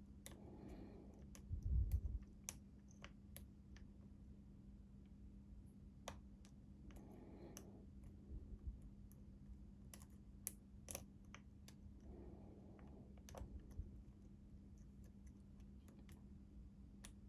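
Lock pick and tension wrench working the pin stack of a Master Lock 6835 padlock: scattered faint clicks of pins being lifted while re-picking to regain a lost false set. There is a dull thump about two seconds in.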